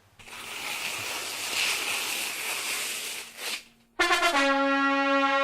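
A sound-effect recording plays: a hissing rush of noise for about three and a half seconds, then a loud trombone-like brass note that steps down once and is held steadily.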